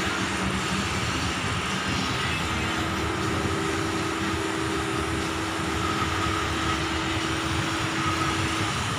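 Steady mechanical hum with a constant rushing noise and a faint steady tone.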